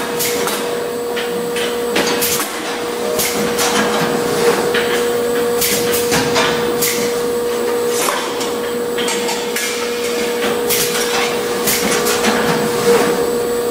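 Schäfer & Flottmann packaging machine running: repeated sharp clacks and short air hisses from its pneumatic pushers and slides over a steady machine hum.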